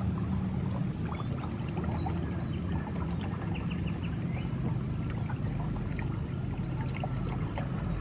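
Outdoor ambience: a steady low rumble with faint, scattered small ticks and chirps.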